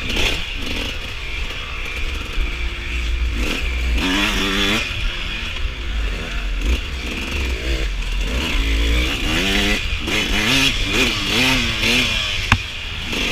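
Suzuki RM125 two-stroke dirt bike engine revving up and down repeatedly as it is ridden over rough ground, with rumble and clatter from the bike. A single sharp knock comes near the end.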